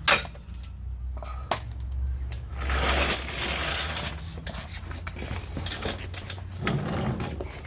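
Sharp metal clicks and clinks of hand tools, then a few seconds of dense, rapid clicking and rattling as the rear engine mount bolts are worked on.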